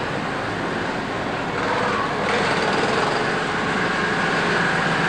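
Steady background noise with a low hum and faint, distant voices.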